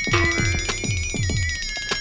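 Electronic background music: a quick, even run of falling-pitch bass notes, about four a second, under a sustained high tone that slowly wavers in pitch.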